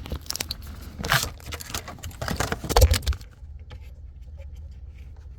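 A car battery being handled and set into place: clattering clicks and scrapes of hard plastic and metal, with a heavy thump near the three-second mark, then a few light ticks.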